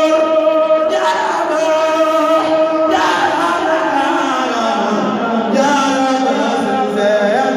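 Voices chanting a Mouride religious song (khassida), holding one long note for the first couple of seconds before the melody moves on.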